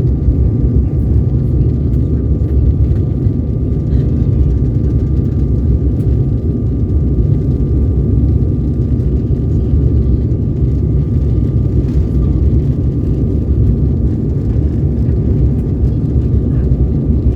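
Steady jet engine and airflow noise heard inside the cabin of an Embraer 195-E2: an even low rumble with a faint steady whine held above it.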